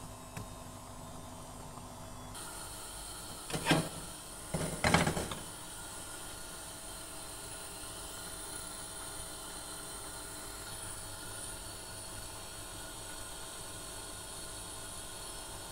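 Two brief clatters of a frying pan being set and shifted on a gas stove's metal grate, the second a little longer with several knocks, over a steady hiss.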